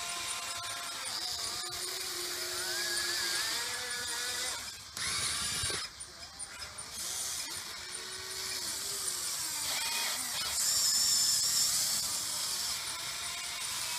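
Electric motors of a Huina 580 RC excavator whining, their pitch gliding up and down as the boom, arm and bucket move. A short rush of noise comes about five seconds in.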